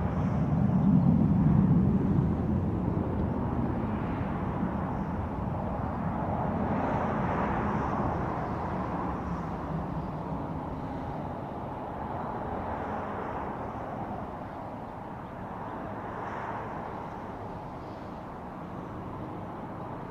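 Jet engine noise from a fighter jet flying past, loudest about a second or two in and then slowly fading with gentle swells as the aircraft moves away.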